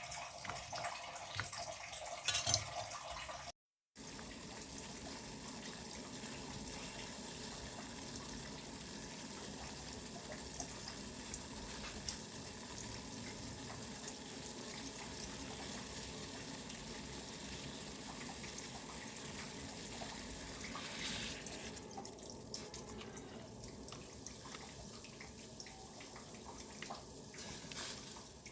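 Tap water running steadily into a kitchen sink, with a brief break about four seconds in, and quieter, more uneven splashing in the last several seconds.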